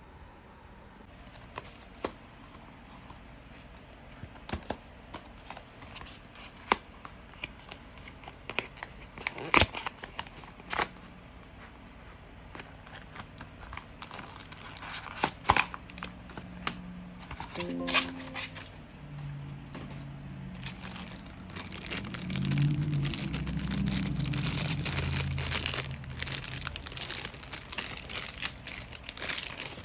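Plastic packaging crinkling as it is handled, with scattered sharp clicks. Music with pitched tones comes in a little past halfway and carries on under the crinkling.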